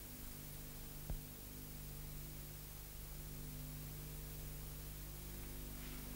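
Quiet steady electrical hum with hiss, the background noise of an old recording, with a single click about a second in.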